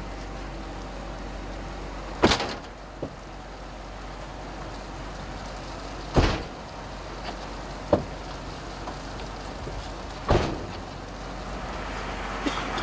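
A vehicle running, heard from inside the cabin as a steady low hum, broken by five sharp thumps a few seconds apart.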